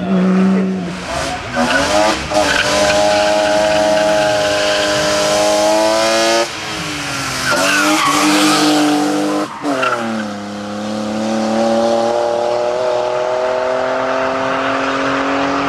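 Rally cars being driven hard on a hillclimb. The engines rev up through the gears again and again, with tyre squeal from sliding tyres. The engine note breaks off sharply twice, about six and a half and nine and a half seconds in.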